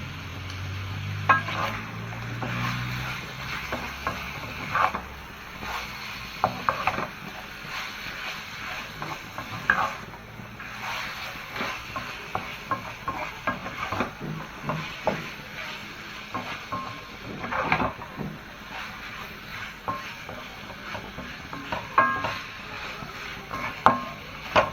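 Skinned frog pieces sizzling in hot oil in a pan, with a spatula scraping and clacking against the pan at irregular intervals as the frog is stirred.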